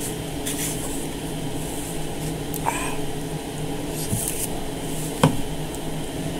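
Eating by hand: chewing and a few short lip smacks and clicks, over a steady low hum in the room.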